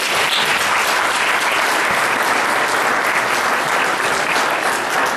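Congregation applauding: a steady, loud burst of many people clapping together.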